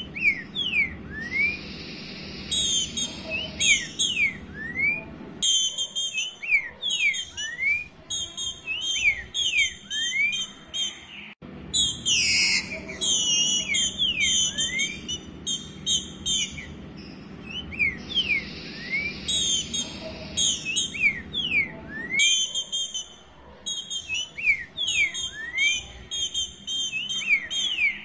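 Female green-winged saltator (trinca-ferro, Saltator similis) calling: a long run of short, rising whistled notes repeated every half second or so, mixed with sharp higher chattering notes. It is the call of a female in breeding condition soliciting a male.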